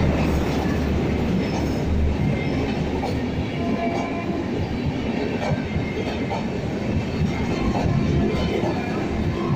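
Express-train passenger coaches rushing past at speed through a station: a loud, steady rumble of wheels on rail with repeated clacks as the wheels cross rail joints.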